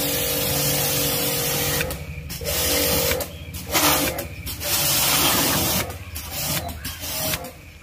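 Pressure washer jet hissing against a scooter's plastic body panels, with the machine's motor humming under it. From about two seconds in, the spray cuts out and starts again several times.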